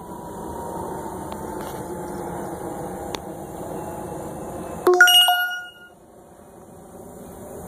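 A steady background hum with a faint tone that slowly falls in pitch, then a little before five seconds in a sudden bright bell-like ding that rings and dies away within about a second.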